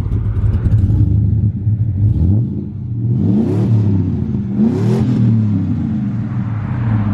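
Supercharged Chevrolet Tahoe's engine idling with a steady low hum, blipped twice so the pitch sweeps up and falls back, about three and a half and five seconds in.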